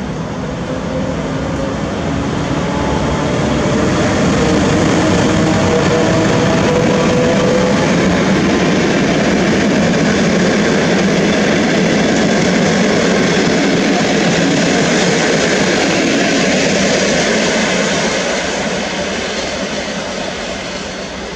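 EP05 electric locomotive hauling a train of passenger coaches passing at speed: steady clatter and rumble of wheels on rails that swells over the first few seconds and fades near the end, with a faint hum falling slightly in pitch in the first half as the locomotive goes by.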